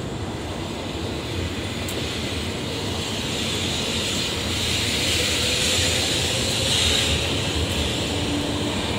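700 series Shinkansen train pulling out of the platform, its running noise and motor whine growing louder as it gathers speed.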